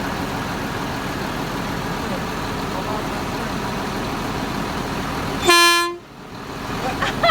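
A recycling truck's horn gives a single short, loud blast, about half a second long, about five and a half seconds in, over the steady running of the truck's engine.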